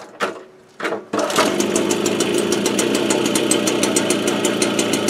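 Motobécane AV7 two-stroke moped engine, fitted with a 65 cc kit, being pedal-started: after a couple of short sounds it catches about a second in and runs steadily with a rapid, even beat. It has just had its contact-breaker ignition timing reset and runs fairly well.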